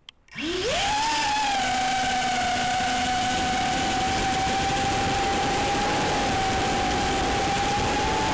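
Emax Tinyhawk 2 Freestyle micro FPV quadcopter's brushless motors arming with a faint click, then spinning up about half a second in with a quickly rising whine. They then hold a steady high whine in flight, heard from the drone's own onboard camera.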